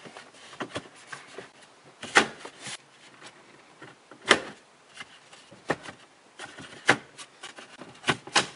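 Plastic dash bezel being pressed into a truck dash by hand: a series of sharp plastic clicks as its corner clips snap home, with light rubbing and handling of the trim between them. The loudest clicks come about two seconds in, about four seconds in and about seven seconds in, with two more near the end.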